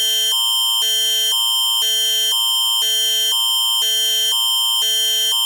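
Canadian Alert Ready emergency attention signal: two clashing tone chords alternate about twice a second over a high tone held throughout. It announces an emergency alert broadcast, here a civil emergency warning.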